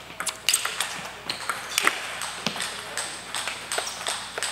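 Table tennis rally: the ball clicking off the rackets and the table in a quick, irregular run of sharp ticks, echoing in a large gym hall.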